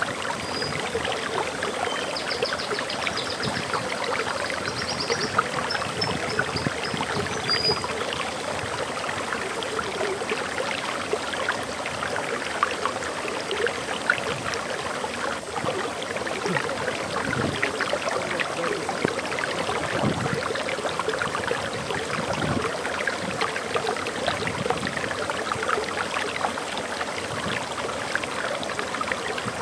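Water flowing steadily over a small waterfall, a continuous splashing rush. A bird sings a few high chirps and a short trill in the first several seconds.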